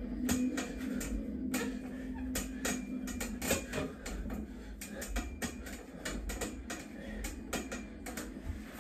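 Steady ticking, about three sharp ticks a second, over a low steady hum.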